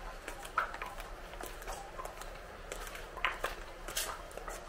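Ambience of a crowded pedestrian street: scattered footsteps clicking irregularly on paving, with faint, indistinct chatter of passers-by.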